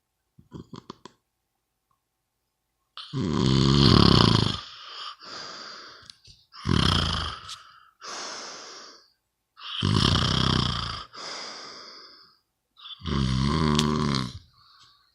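Snoring: after a brief flutter near the start, four loud snores come about three seconds apart, each followed by a softer breath.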